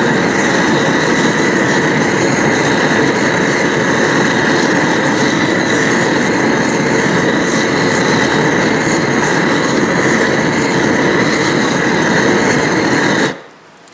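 Gas torch flame hissing steadily as it heats a copper gasket red hot to anneal it. It cuts off abruptly near the end.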